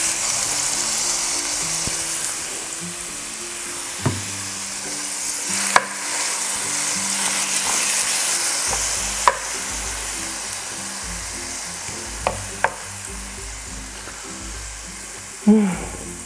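Kimchi and spam sizzling in a nonstick frying pan over high heat, stirred with a wooden spoon; the sizzle slowly dies down, broken by several sharp knocks of the spoon against the pan.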